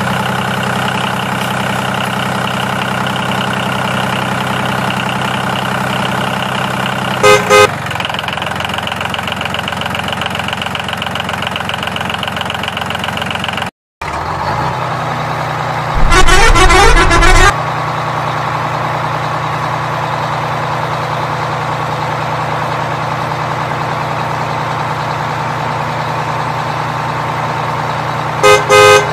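Truck engine sound running steadily, with loud horn honks: a short pair about seven seconds in, a longer blast around the middle, and another short pair near the end. The sound cuts out briefly partway through and comes back on a lower engine note.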